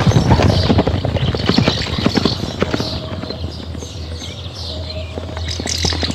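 Zebra hooves galloping on dry, dusty ground: a dense clatter of hoofbeats in the first few seconds that thins out through the middle and picks up again near the end.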